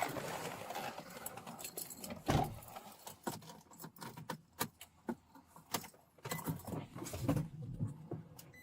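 Irregular clicks and light rattling, as of keys or equipment being handled close to the microphone, with a louder knock about two and a half seconds in.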